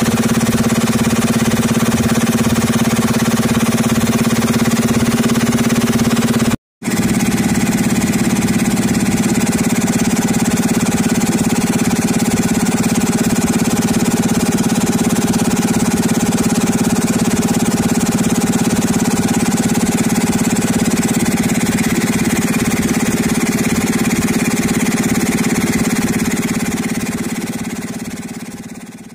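Tractor-driven piston air compressor running steadily off the tractor's PTO shaft through V-belts, together with the tractor engine's steady hum. The sound cuts out for an instant about a quarter of the way in and fades away at the end.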